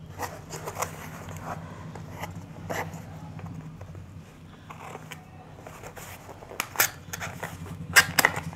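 Small cardboard product box being handled and its tuck-end flap pried open: a run of small paperboard scrapes and clicks, with the two sharpest snaps a little before the end. A steady low hum runs underneath.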